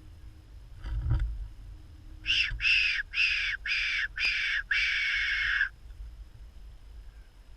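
Fox whistle blown in six short squeals, each falling in pitch, the last one longer, used to call in a fox. A low thump comes about a second in, before the calls.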